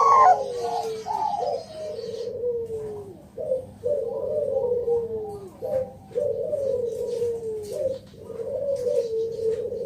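Zebra dove (Bangkok perkutut) cooing: a short note followed by a longer trilling coo that falls in pitch, repeated about every two seconds.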